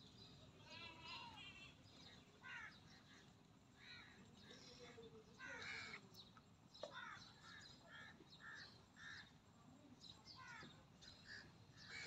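Turkeys calling faintly: scattered short calls, a quick run of notes about a second in, and an evenly spaced string of short calls, about two or three a second, a little past the middle.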